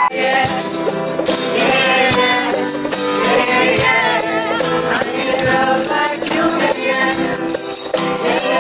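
A group of people singing a song together to music with a steady rhythmic percussion beat.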